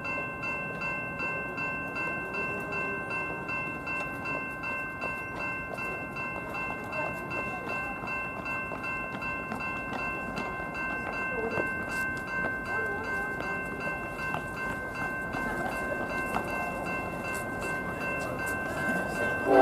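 Grade-crossing warning bell ringing steadily while an approaching freight train rumbles. The lead locomotive's horn blasts loudly just at the very end.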